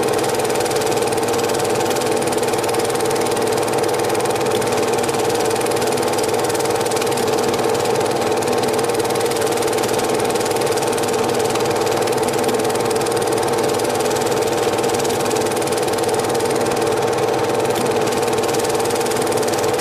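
Cine film projector running steadily, its motor and film-advance mechanism making a continuous mechanical whirr.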